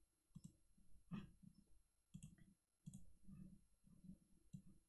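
Several faint computer mouse clicks spread across a near-silent stretch of room tone.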